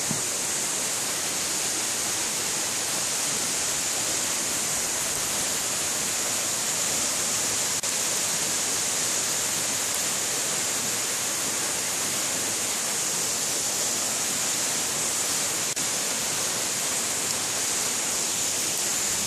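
A waterfall pouring down a rock face into a plunge pool: a steady rushing of falling water with a bright hiss.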